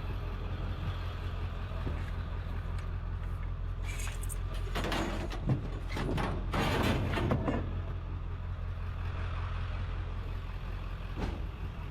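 Steady low rumble of an idling engine, with a stretch of scraping and clattering noises near the middle and a short click near the end.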